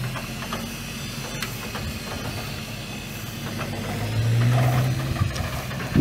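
1995 Toyota Tacoma's 2.7-litre four-cylinder gas engine idling steadily, with scattered light clicks.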